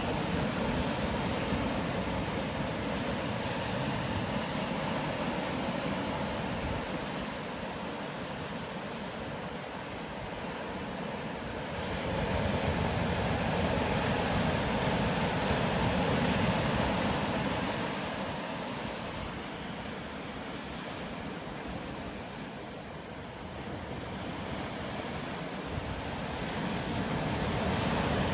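Ocean surf breaking and washing up a sandy beach: a steady rush of water that swells and eases in slow surges as each set of waves comes in.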